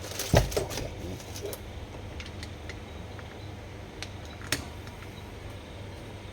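Small parts of a Daiwa Steez SV TW baitcasting reel and hand tools clicking and knocking as the reel is taken apart, with a sharp knock about half a second in and another near four and a half seconds, over a steady low hum.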